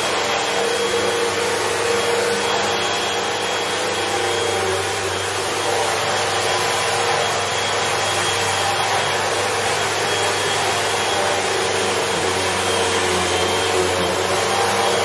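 Upright vacuum cleaner running steadily as it is pushed over a runner rug, a constant motor whir with a faint high whine.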